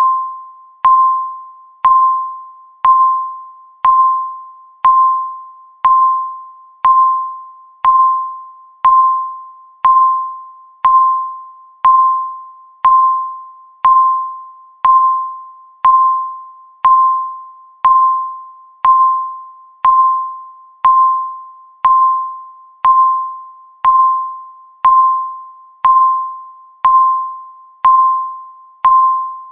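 Countdown timer's electronic tick: a short ringing ping with a sharp click at its start, once every second, each one fading away before the next.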